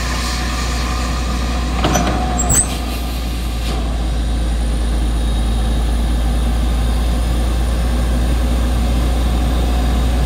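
Truck-mounted borewell drilling rig running steadily, its engine and air compressor giving a heavy, low drone, with two brief knocks about two seconds in.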